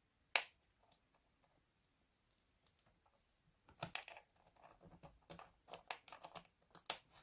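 Light plastic clicks and handling rustles as a SATA adapter cable's connector is handled and pressed down onto its motherboard socket inside a laptop. There is one sharp click about half a second in, then a run of small clicks and rustles over the last few seconds, with a firmer click near the end.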